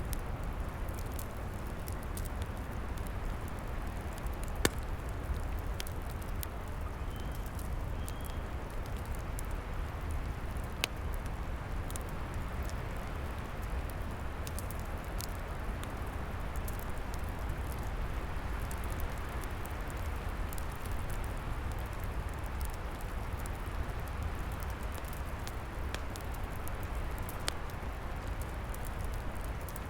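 Wood fire crackling, with scattered sharp pops, the loudest about five and eleven seconds in, over a steady rush of wind.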